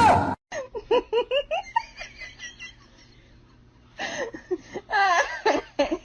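A person laughing in a quick run of short giggles, a pause, then more laughter near the end.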